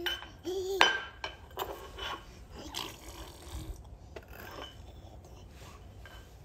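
Stainless steel measuring cups clinking, knocking and scraping on a hard floor as a baby handles and drags them. About a second in there is one loud ringing metallic clink, followed by smaller knocks and scrapes. A short baby vocal sound comes at the start.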